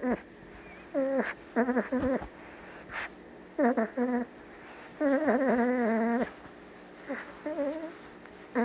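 A Boston Terrier puppy, a few months old, makes little whimpers and whines while being snuggled and stroked. It gives a string of short pitched calls, with one longer wavering whine about five seconds in.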